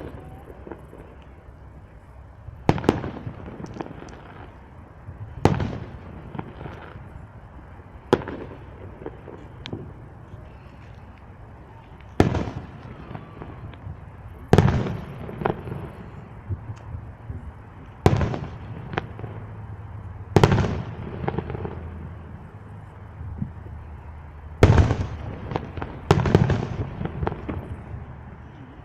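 Fireworks going off: a series of about ten sharp bangs a few seconds apart, each fading out over a second or so.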